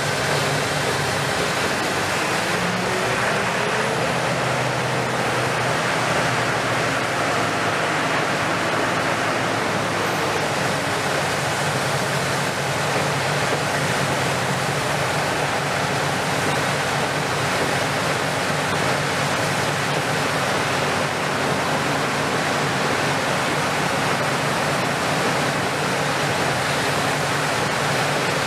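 Caterpillar 340F UHD demolition excavator's Cat C9.3 diesel engine running steadily with its hydraulics working the long-reach boom, under a steady rushing hiss. There is a faint rise in pitch a few seconds in.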